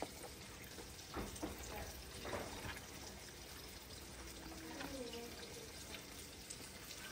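Faint steady hiss of chicken frying in hot oil, with a few soft pats and rustles of hands dredging chicken tenders in flour.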